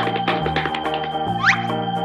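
Cartoon background music with a bass line stepping to a new note every half to three-quarters of a second. A short, quick rising glide sound effect comes over it about one and a half seconds in.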